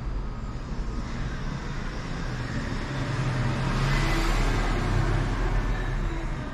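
A road vehicle passing by, its noise swelling to a peak about four seconds in and then fading, over a steady low hum.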